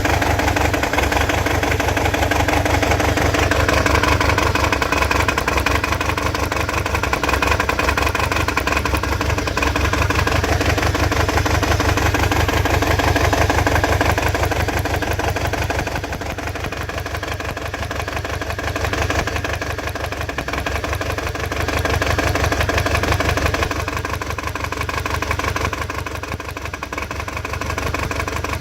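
Toyota 22R-series four-cylinder engine running at idle with a misfire, a little quieter from about halfway through.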